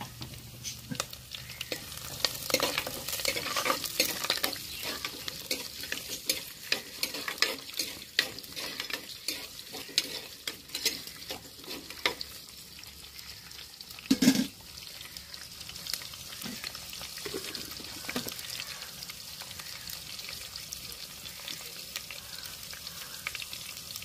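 Curry leaves, dried red chillies and whole spices sizzling and popping in hot oil in a clay pot, the first tempering of a South Indian curry, stirred with a metal spoon that scrapes and clicks against the pot. One louder knock about fourteen seconds in.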